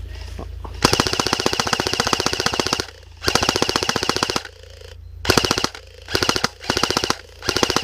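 Airsoft gun firing on full auto: rapid clicking bursts, first a long one of about two seconds starting about a second in, then a shorter one, then several short bursts in quick succession.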